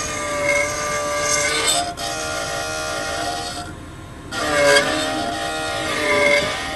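Key-cutting machine's cutter running as it mills a new key, a whining motor tone that wavers in pitch as the cut loads it. It stops for about half a second a little past halfway, then starts again.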